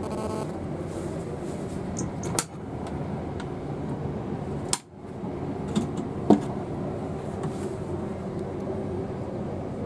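Steady rumble and hiss of a Nightjet sleeper train running, heard from inside the sleeping-car compartment. A few sharp clicks and knocks come in the middle as the wooden washbasin cabinet door is opened.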